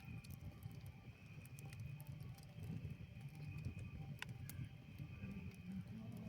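Campfire crackling: scattered sharp pops and ticks over a low rumble, with a faint steady high tone.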